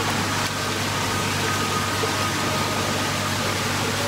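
Steady hiss with a low hum underneath: the background noise of an indoor swimming pool, its water and machinery.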